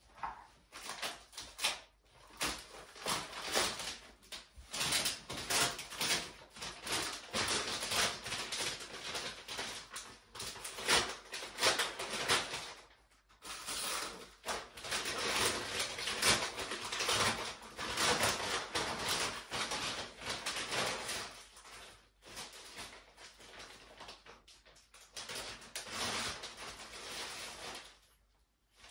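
Plastic packaging wrap being torn and crinkled off a large package: an irregular crackling rustle, with a short pause about halfway through and dying down near the end.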